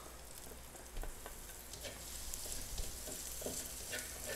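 Ground pork sizzling in hot oil with onions and garlic in a steel wok as it is tipped in and stirred with a spatula, with faint clicks of the spatula against the pan. The sizzle grows a little after about a second.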